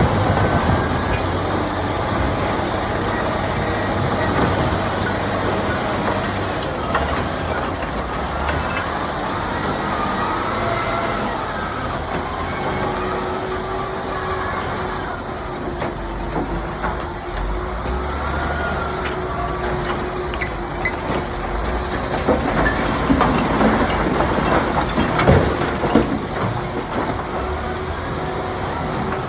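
Heavy earthmoving machine at work: a steady engine rumble with rising and falling metallic squeals, a held whine from about halfway, and a run of clanks and knocks near the end.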